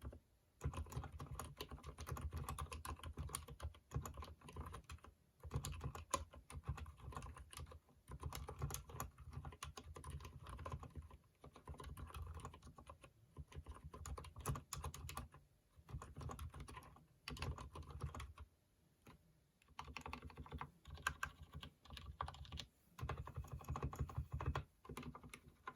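Typing on a Durgod mechanical keyboard with lubed Cherry MX Silent Red switches: dense, muted key presses with short pauses between runs. After a brief pause near the end, the lubed stabilized long keys are pressed over and over.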